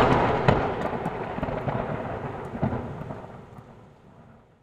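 Thunder-like crash sound effect with scattered crackling snaps, loudest at the start and fading out over about four seconds.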